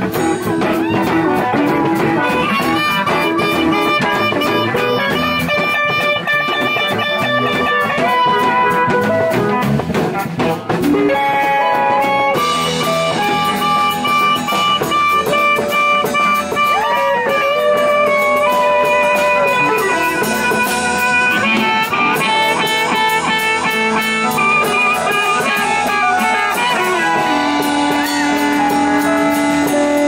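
Live blues band playing, with a harmonica solo of held and bent notes over electric guitar, bass guitar and drums.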